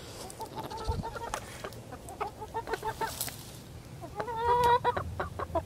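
A flock of hens clucking, with a run of short clucks throughout and one longer, louder held call about four seconds in.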